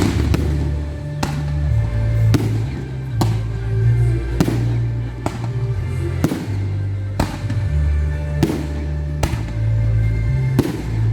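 Fireworks display: sharp firework bangs about once a second over loud music with deep, held bass notes.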